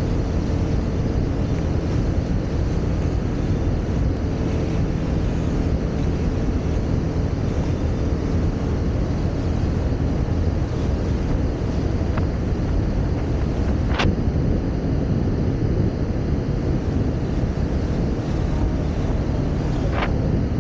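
Motorcycle engine running steadily while riding, under heavy wind noise on the microphone, with a few sharp clicks.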